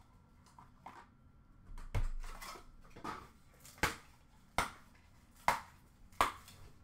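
A series of about six sharp plastic clicks and taps, roughly one a second from about 2 s in, as trading cards in hard plastic cases are handled and set down.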